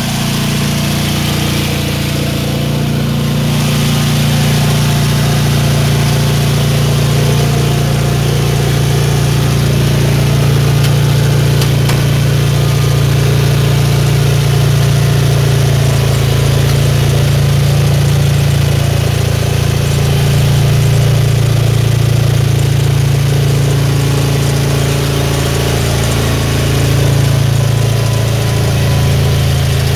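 Wheel Horse 520-SC garden tractor's engine running steadily as the tractor drives, heard from inside its enclosed cab, with small rises and falls in engine speed.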